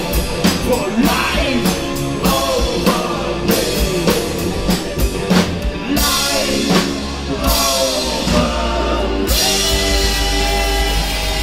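Rock band playing live, with drum kit and singing; about six seconds in and again after nine seconds the band comes in fuller with crashing cymbals.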